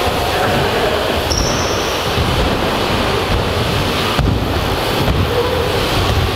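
BMX bikes rolling over indoor skatepark ramps: a continuous tyre rumble, with a sharp knock about four seconds in.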